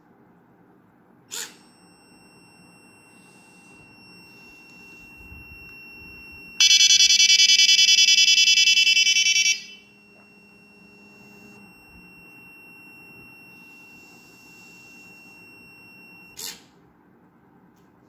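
Electronic buzzer of an IoT door lock sounding for about three seconds, a harsh, rapidly pulsing buzz. A sharp click comes about a second in and another near the end, with a faint steady high tone between them.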